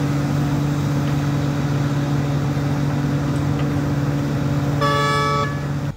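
Large mining hydraulic excavator's diesel engine running steadily under load as it loads a haul truck. About five seconds in there is a short horn blast.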